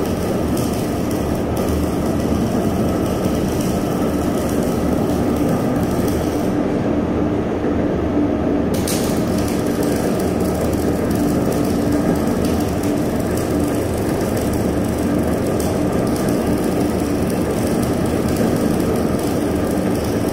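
Horizontal ribbon blender running: steady mechanical drone of the drive motor and gearbox turning the ribbon agitator, with a constant low hum.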